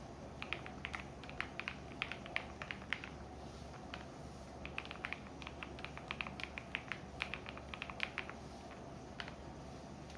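Typing on a computer keyboard in two runs of quick key clicks, a few seconds each, over the steady low hum of a washing machine running.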